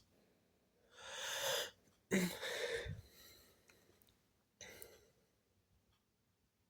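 A person's breathing: two loud, hissing breaths and then a short, faint one, with quiet in between.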